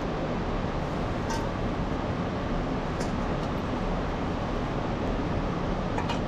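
Steady low rumbling background noise, with a few light metallic clinks as an aluminium bowl and pot lid are handled: one about a second in, one about three seconds in, and one near the end.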